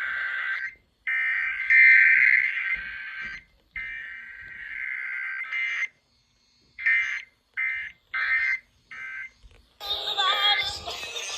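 Emergency Alert System SAME digital data bursts, a harsh two-tone screech. There are three bursts of about two seconds each, then four short ones of about half a second. A radio broadcast with music and speech comes in near the end.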